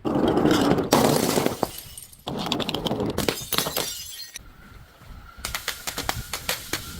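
Glass bottle breaking and crunching: a loud crash at the start, another about a second in and another a little after two seconds, then a run of sharp crackles near the end as the glass fragments are crushed.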